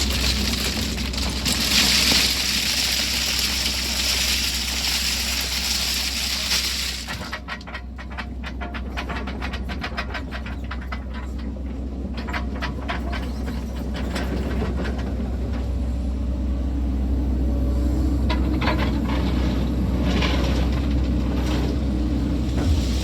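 Sany SY80 excavator's engine running steadily under load. For the first seven seconds a loud hiss rides over it; after that comes a scattered crackle and clatter, like stones and dirt shifting.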